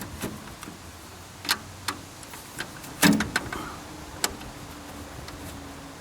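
Scattered metal clicks and knocks as the parts of an oil bath air cleaner are handled and fitted back together, with one louder clunk about halfway.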